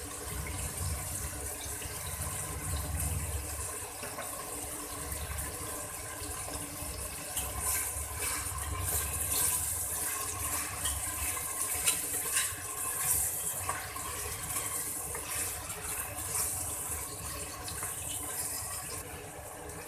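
Mutton pieces and sliced onions sizzling in hot oil in a pressure cooker, with a spoon scraping against the metal pot as the mixture is stirred, mostly in the second half.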